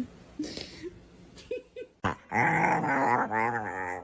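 A dog's long, wavering growl-like vocalization, starting about two seconds in after a quieter stretch of small scattered sounds.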